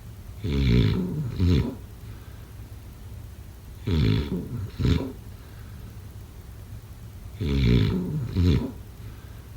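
A person snoring in deep sleep: three rattling snores about three and a half seconds apart, each a longer stretch followed by a short second burst.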